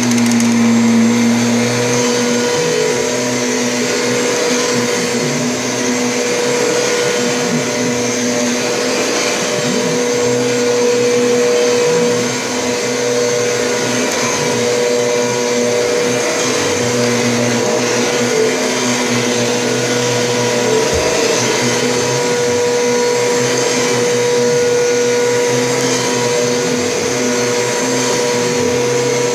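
Kirby G Series Diamond Edition vacuum cleaner running steadily on a hose attachment, a constant motor hum and whine with a rushing of air, its pitch holding level throughout.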